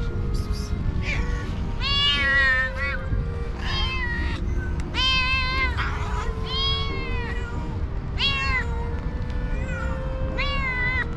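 Hungry stray cats and kittens meowing for food: about seven high meows, each rising and then falling in pitch, a second or two apart.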